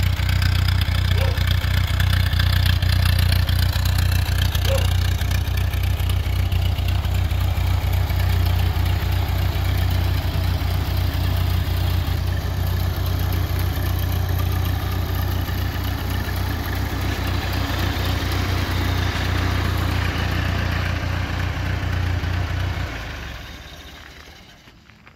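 Ford-Ferguson 2N tractor's four-cylinder flathead petrol engine idling steadily, then shut off near the end, its sound dying away over about a second and a half.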